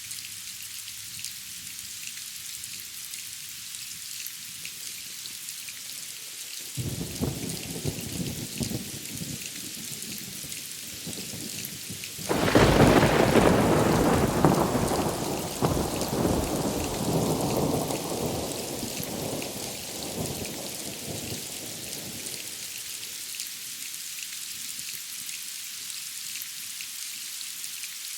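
Steady rain hiss with a thunderstorm passing over. A low rumble of thunder starts about seven seconds in, a loud thunderclap breaks about twelve seconds in, and the rumble rolls on and fades away over the next ten seconds.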